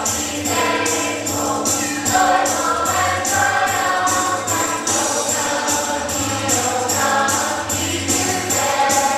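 A choir singing a song with musical accompaniment and a steady, crisp percussion beat.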